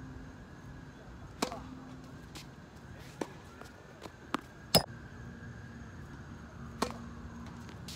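A tennis rally: about six sharp pops of the ball coming off racket strings and the court, some close and loud and some far off and faint, the loudest just before five seconds in. A faint steady hum sits underneath.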